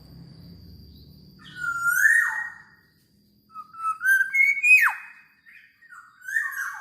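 Black-naped oriole (kepodang) singing three loud, fluty whistled phrases with gliding pitch, the middle one ending in a sharp downward sweep.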